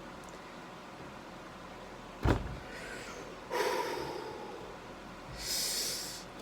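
A single sharp thump, the loudest sound, about two seconds in, followed by a brief scraping rustle and, near the end, a short high hiss.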